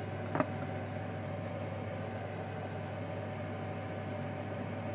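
A glass lid clinks once onto a stainless steel saucepan about half a second in, over a steady hum and hiss.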